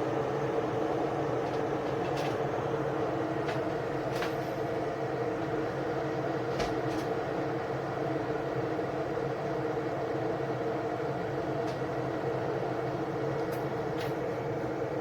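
AZEUS 1.8 L glass and stainless steel electric kettle heating water: a steady rushing rumble, with a few faint clicks scattered through it.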